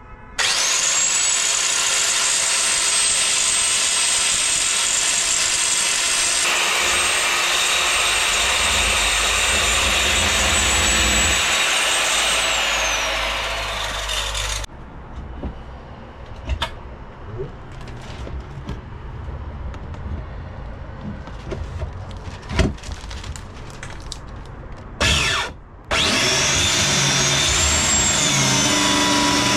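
Handheld high-speed power tool running with a steady high whine for about twelve seconds, then spinning down. After a stretch of small knocks and clicks, it starts up again near the end.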